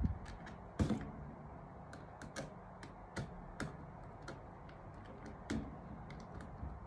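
Irregular small clicks and taps of a screwdriver and wire ends against the contact terminals and plastic housing of a crane pendant push-button station being wired, the loudest about a second in.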